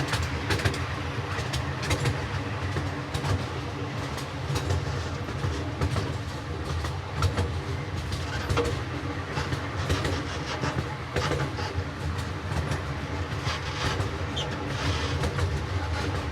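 Miniature railroad train running with a steady low rumble, heard from aboard, with frequent short clicks and clacks of the wheels over the rail joints.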